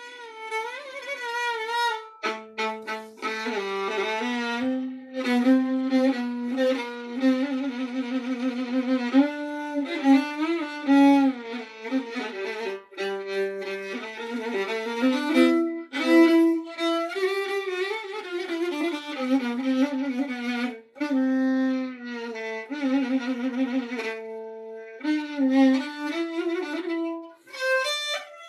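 A solo violin playing a slow melody with vibrato, in phrases separated by brief pauses, with its lowest notes down near the bottom of the violin's range.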